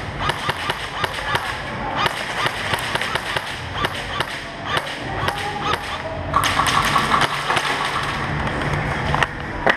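Airsoft gunfire: irregular sharp pops and taps of shots and BBs striking wooden barricades, several a second, growing denser about six seconds in.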